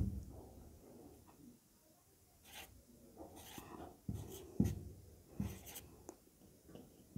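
Marker pen writing on a whiteboard: a run of short, faint strokes, mostly in the second half, as a row of figures is written out.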